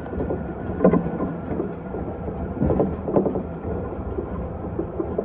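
Electric commuter train running along the track, heard from inside the front of the cab: a steady rumble of wheels on rail with a faint hum. A few louder knocks stand out about a second in and again around three seconds in.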